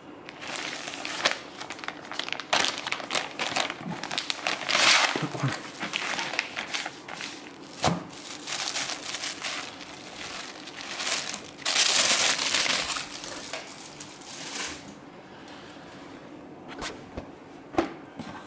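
Clear plastic garment bag crinkling and a cotton T-shirt rustling as the bag is opened and the folded shirt is pulled out and spread flat. It comes in uneven bursts, loudest about five seconds in and again around twelve seconds, then mostly dies down for the last few seconds apart from a couple of short clicks.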